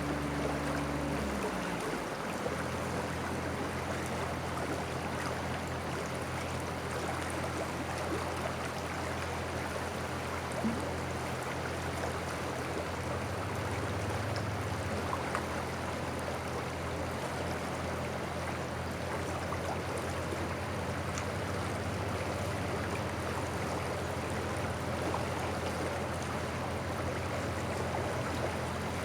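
St. Croix River water flowing with a steady rush. A low steady hum runs beneath it and drops in pitch about two seconds in.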